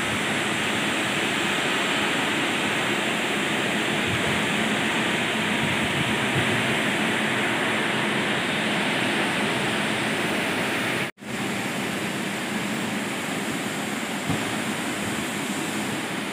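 Electric arc welding on a steel solar-panel mounting structure: a steady frying hiss, cut off briefly about eleven seconds in before it carries on.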